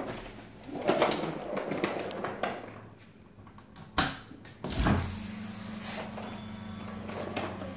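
Front door being unlocked and opened: a wheeled backpack and footsteps moving across the floor, a sharp click of the door lock about four seconds in, then a thump as the door is pulled open, after which a steady low hum comes in.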